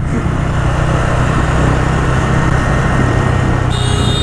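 TVS Ronin 225's single-cylinder motorcycle engine running steadily under way, with a rush of wind and road noise. A brief high-pitched tone sounds near the end.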